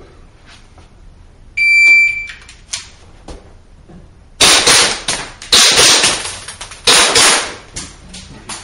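Electronic shot timer gives one steady beep, then after a few light clicks, three loud pistol shots ring out about a second apart, each with a long echoing tail in the indoor range.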